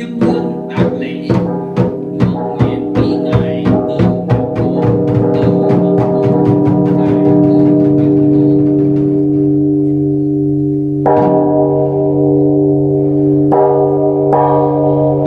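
Temple bell struck over and over, the strikes coming faster and faster for the first few seconds until they blur into a long ringing. It is struck three more times in the last few seconds.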